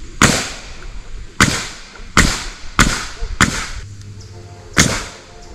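Six sharp, loud cracks at uneven intervals: nails being driven into the timber girts of a pole barn frame.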